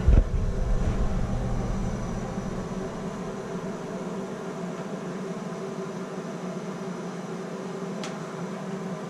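Plumber's torch flame burning with a steady hiss, heating the brass body of a tub and shower valve for soldering. There is a low knock right at the start and a faint click near the end.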